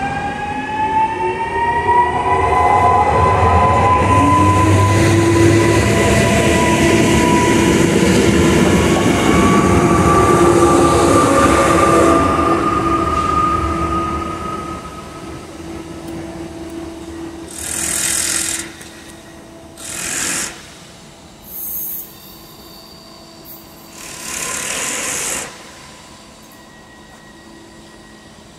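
Regional electric multiple unit accelerating past on the platform track. The traction motors' whine rises in pitch over the first couple of seconds and then holds, with wheel-on-rail rumble, before fading away after about twelve seconds. Several short bursts of hiss follow in the second half.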